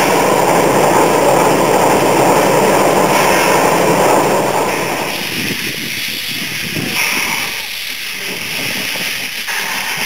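Small steam tank locomotive hissing loudly and steadily, then, about five seconds in, quieter and uneven as it moves slowly along the track with steam blowing out low by its cylinders.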